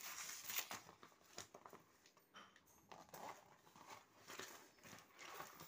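Faint rustling and scuffing of a fabric badminton racket cover being handled and moved about, in a string of brief, soft rustles.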